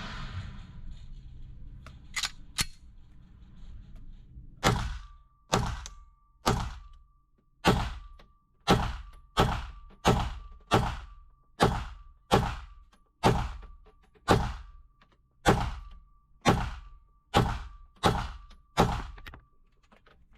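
Handgun or rifle fire: a string of about eighteen single shots at a slow, even pace a little under one a second, each with a short ringing tail.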